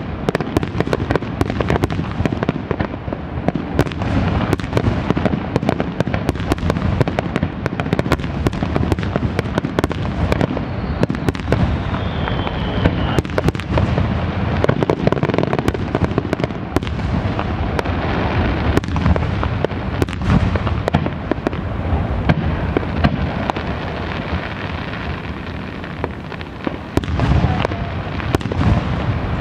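Fireworks finale: a dense, unbroken barrage of aerial shell bursts, booms and crackling, with a brief falling whistle about twelve seconds in and a louder cluster of bursts near the end.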